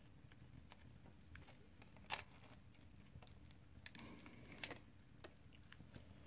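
Near silence broken by a handful of faint, sharp clicks and ticks, the clearest about two seconds in and just before five seconds in: a prying tool working under the cracked display glass of a Huawei Mate 20 Lite.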